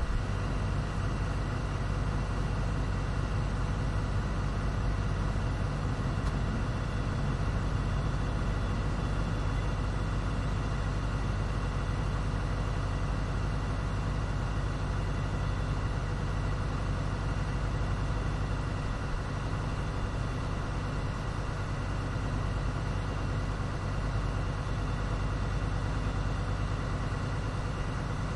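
An engine running at a steady, unchanging speed, a constant hum with steady tones over a low rumble.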